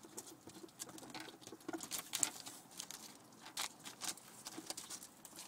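Ferrets chewing and tearing at a raw chicken carcass: irregular wet clicks, snaps and crackles of teeth on raw meat and bone.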